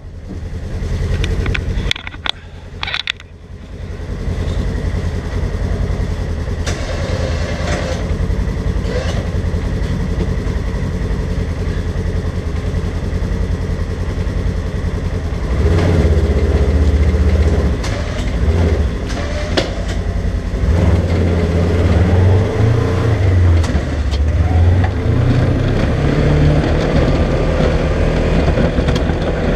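2020 Polaris General XP UTV engine running while plowing snow, heard from inside the doorless cab. About halfway through it gets louder and rises and falls with the throttle.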